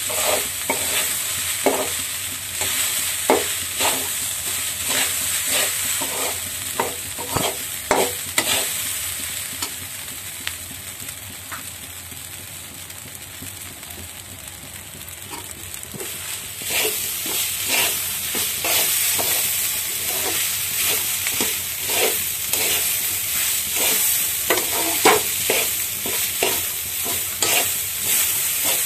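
Basmati fried rice with vegetables sizzling in a hot metal kadai while a flat metal spatula stirs and tosses it, scraping and clacking against the pan in quick strokes. The stirring eases off and goes quieter for a few seconds in the middle, then picks up again.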